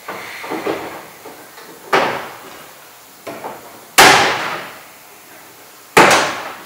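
Plastic vent pipe sections of a portable toilet being knocked into place: three sharp hard knocks about two seconds apart, the last two loudest, each ringing briefly in the plastic cabin, with softer handling rustle before the first.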